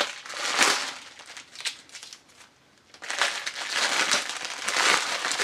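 Plastic packaging crinkling as it is handled and opened, with a short pause about two seconds in before the rustling resumes.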